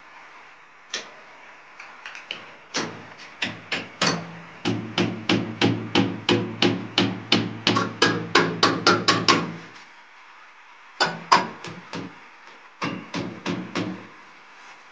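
Hammer blows on a concealed flush cistern's wall-bracket fixing as it is fastened to a concrete wall: a long run of quick strikes, about two to three a second, then a pause and two shorter runs near the end.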